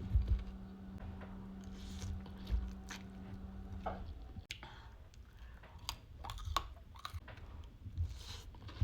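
Close-up eating sounds: biting and chewing with crunchy clicks and mouth smacks, over a low steady hum that stops about halfway through.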